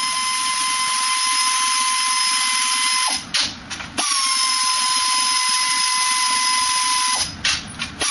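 Pneumatic wrench running in two long spells of steady high-pitched whine, each about three seconds, with a short break and a couple of brief blips between them, as it spins out the scooter's exhaust mounting bolts.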